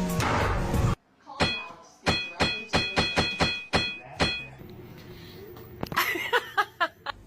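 A quick run of about a dozen sharp knocks, each with a short ringing note, then a few brief squeaky sounds with bending pitch near the end.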